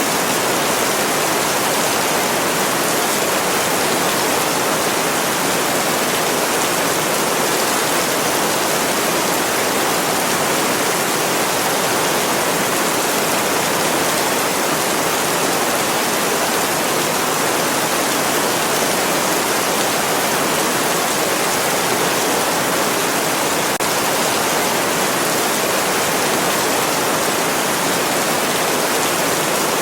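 Steady rain, an even hiss with no separate drops standing out and no change in level.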